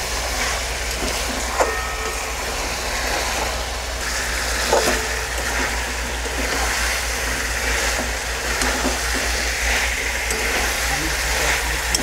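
Chicken pieces in thick masala sizzling and frying in a metal kadai while a spatula stirs them. A steady frying hiss runs throughout, with a few short knocks of the spatula against the pan.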